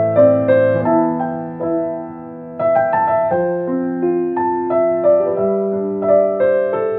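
Soft piano music: a slow melody of single notes over held lower notes, briefly quieter about two seconds in.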